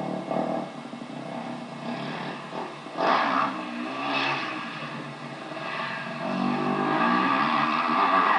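Motocross bike engine revving up and down as it rides the track, heard from on board, with a brief loud rush of noise about three seconds in and the pitch climbing steadily under acceleration near the end.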